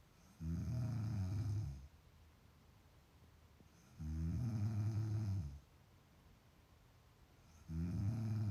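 Heavy snoring: three long snores at an even pace, one about every three and a half seconds, each lasting about a second and a half.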